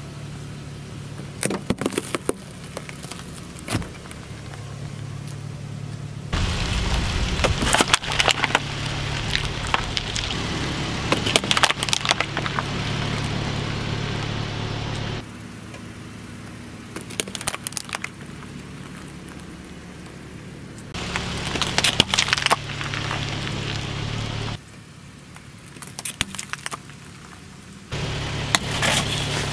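A car tyre rolling slowly over objects and crushing them, with sharp cracks, crunches and crackles over the low hum of the car's engine. The sound changes abruptly several times from one short take to the next.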